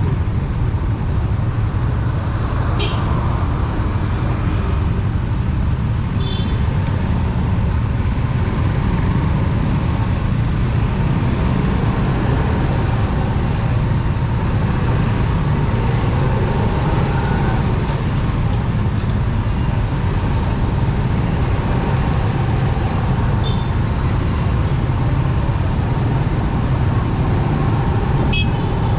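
Steady road and wind rumble of a motorcycle ride in traffic, with a few brief high chirps.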